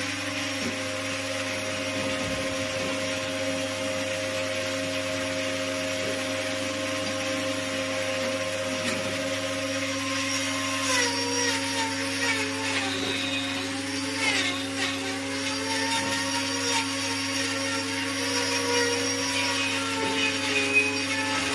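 Electric angle grinder with a hoof-trimming disc running and grinding a cow's hoof. Its whine holds steady at first, then dips and wavers from about halfway through as the disc bites into the horn.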